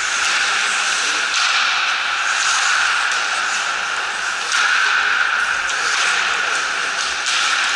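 Ice hockey skate blades scraping and swishing across the ice over a steady hiss, with louder swishes about a second and a half in, past the middle, and near the end.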